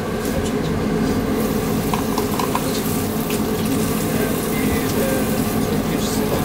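Steady rushing kitchen noise with a low hum underneath, growing brighter and hissier after about a second and a half.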